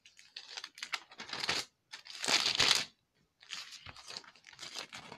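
Bible pages being turned and rustled, in several irregular bursts of papery noise, the loudest about two seconds in.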